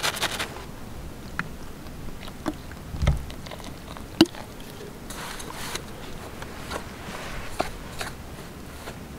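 Light handling sounds of dough-making in an aluminium pot: a plastic flour bag rustling, water poured from a bottle onto the flour, and a hand pressing into it, with scattered small clicks and taps. There is a low thump about three seconds in and a sharp click just after four seconds.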